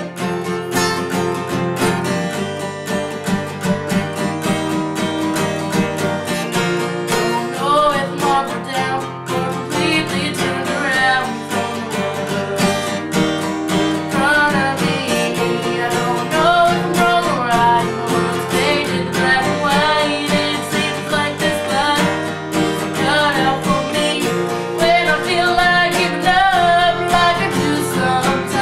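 Acoustic guitar strummed alone at first, then a solo voice singing a slow song over the guitar from about eight seconds in.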